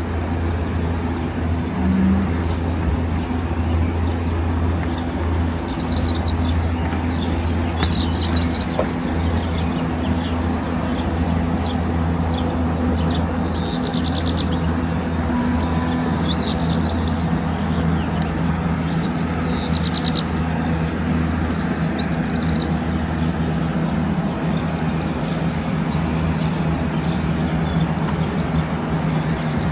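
A small bird chirping in short, high trilled phrases, repeated every couple of seconds, over a steady low hum.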